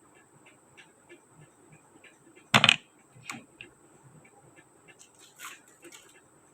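Small plastic toy kitchen pieces being handled, tapping and clicking lightly, with one loud sharp clack about two and a half seconds in as pieces knock together.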